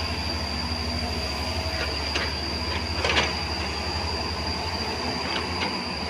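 JCB JS205 tracked excavator's diesel engine running under load with a deep, pulsing rumble and a steady high whine. Short metallic squeaks and clanks from the machine's steel parts come now and then, the loudest about three seconds in.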